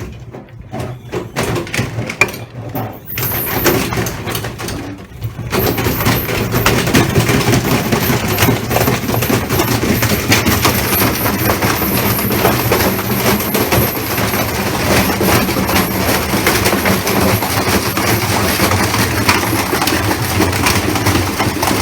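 Washing machine running with hard, heavy objects loose in its drum: scattered knocks at first, then, about five seconds in, a loud, dense clatter of rapid knocking over a steady low hum.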